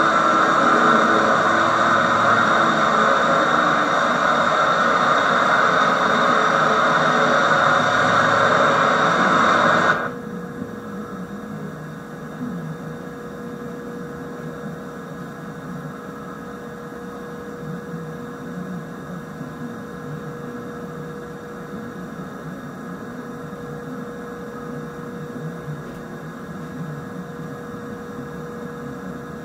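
Old VHS tape audio with no clear source: a loud, steady rushing noise that cuts off abruptly about ten seconds in. A much quieter steady hum with a faint held tone follows.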